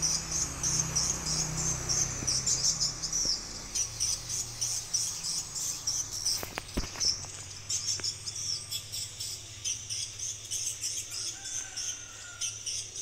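Insects chirping in a high, rapidly pulsing trill that keeps going, with a couple of short sharp clicks about seven seconds in.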